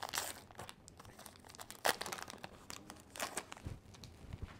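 Wrapper of a baseball card pack crinkling and tearing as it is opened and pulled off the cards, in irregular crackly bursts with the sharpest crackle about two seconds in. A few soft low knocks near the end as the cards are handled.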